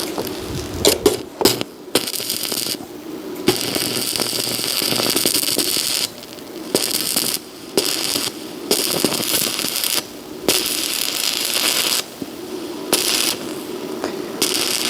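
Electric arc welding: a steady frying crackle of the arc, in runs of a few seconds that stop abruptly and restart several times as short beads are laid.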